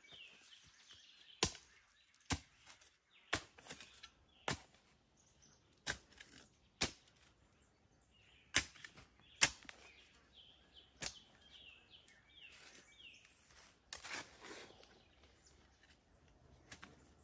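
Small hand shovel being driven into the ground to dig a hole: about ten sharp strikes roughly a second apart, stopping after about eleven seconds, followed by softer scraping.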